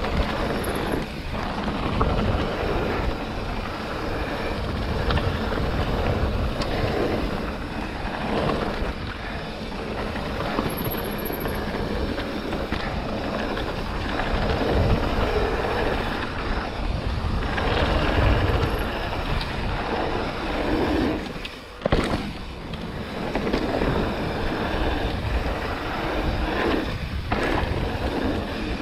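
Mountain bike riding fast down a dirt singletrack: tyres rolling over dirt and the bike rattling, with wind buffeting the microphone. About three quarters of the way through the noise drops for a moment, then a sharp knock.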